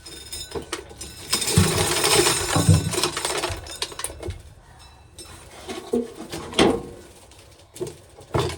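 Hand corn sheller at work: a burst of rattling and knocking as an ear of dried corn goes through and kernels fall, lasting about two seconds, then a shorter sharp rattle near the end.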